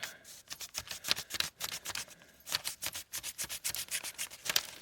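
A paper banknote wrapped around a gas furnace's flame sensor rod and rubbed quickly up and down it: a rapid, irregular run of short dry scraping strokes. The rod is being scrubbed of the green crust that keeps the sensor from working, which makes the furnace shut off.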